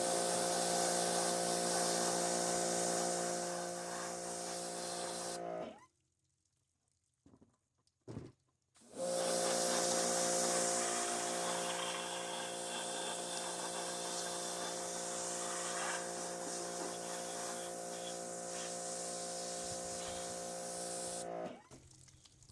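Pressure washer running and spraying: a steady pump-motor hum under the hiss of the water jet. It stops about six seconds in and starts again three seconds later.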